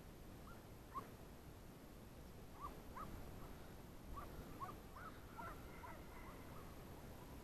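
Jagdterrier giving tongue, a string of faint short yelps that come thicker from a couple of seconds in: the dog yelping on the chase of a hare it has just flushed.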